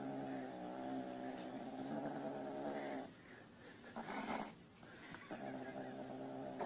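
Domestic tabby cat giving a long, low, continuous growl with food in its mouth, typical of a cat guarding its food. The growl breaks off about three seconds in, there is a short breathy sound, and it starts again near the end.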